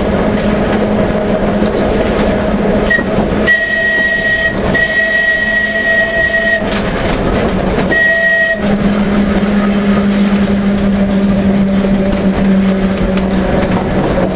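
Manx Electric Railway tramcar running along the track with a steady hum. From about three seconds in to past eight seconds, a high steady tone sounds three times: about a second, then about two seconds, then a short half-second.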